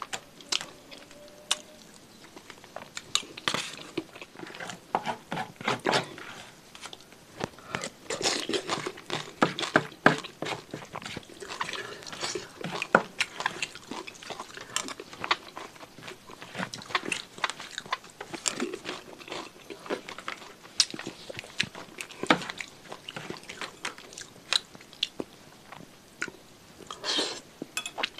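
Close-miked eating sounds: wet chewing and crunching of chicken-feet satay in sauce, a rapid, irregular run of sharp clicks and crackles.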